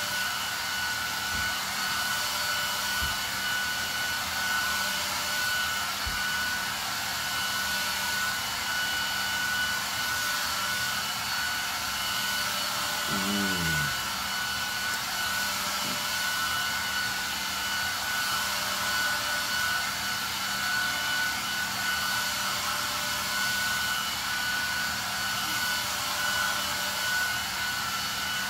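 Steady whir of a motor-driven fan, with a constant high whine and a low hum under it. About halfway through, a short pitched sound slides downward.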